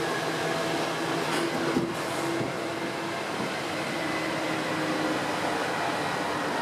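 A driverless, rubber-tyred Paris Métro Line 1 train running steadily along the track, heard from inside at the front of the car: an even running noise with a low, steady hum underneath.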